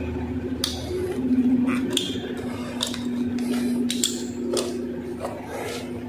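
Pliers clicking and snipping while stripping the insulation off an electrical wire, a scatter of sharp clicks over a steady low hum.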